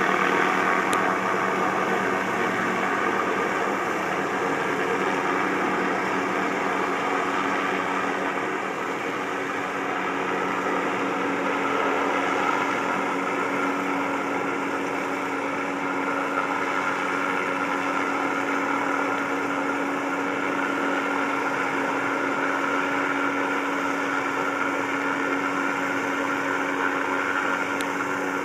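A steady engine drone, with a constant low hum and a higher whine over it.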